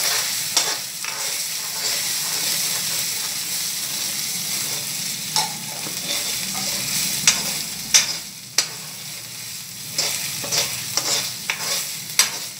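Chopped garlic and ginger paste with spices sizzling in a little oil in a kadhai, stirred steadily with a metal spoon to keep it from sticking. Several sharp clinks of the spoon against the pan cut through the steady sizzle.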